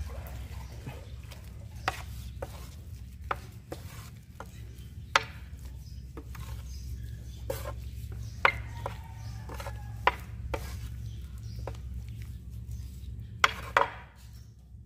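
Tile grout being stirred by hand with a mixing tool, giving irregular scrapes and sharp knocks, over a steady low hum.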